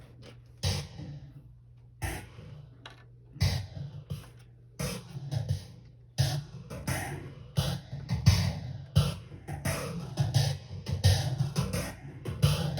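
Moog DFAM and Subharmonicon analog synthesizers playing improvised electronic music. Sparse, noisy percussive hits a second or two apart sit over a steady low hum, then build into a denser, busier rhythm about six seconds in.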